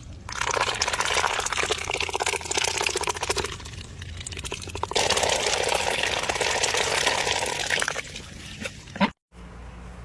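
Water splashing and spraying in two spells of about three seconds each, with a short quieter lull between.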